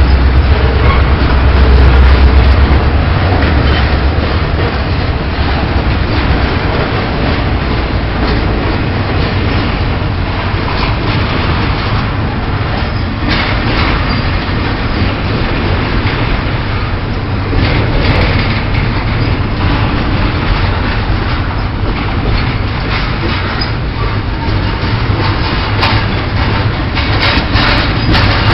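Pan Am Railways freight train 22K rolling past, a loud, steady rumble and noise of railroad cars on the rails, deepest in the first few seconds.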